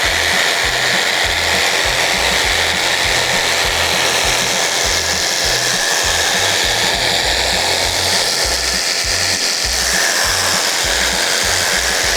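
Electric saw running steadily as it cuts through seat cushion foam, with background music underneath.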